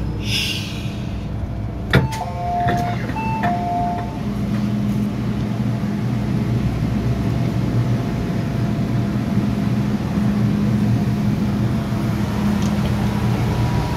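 MTR M-Train at a platform: a short hiss of air and a sharp click, then the two-tone door chime sounding twice. After it comes a steady low hum and rumble from the standing train.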